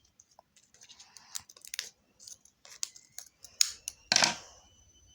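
Scissors snipping and crunching at the sealed packaging of a putty tub, several short cuts with a louder crunch about four seconds in.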